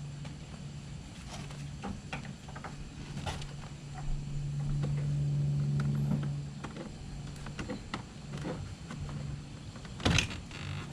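Scattered clicks and knocks from work on a pickup truck's door panel and trim, over a steady low hum that swells for a couple of seconds midway. There is a louder knock near the end.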